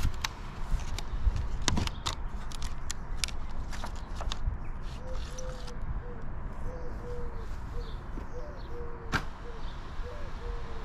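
Wind noise on the microphone, with sharp clicks and crackles of handling over the first few seconds and one louder click near the end. From about halfway, a low bird call repeats in short notes.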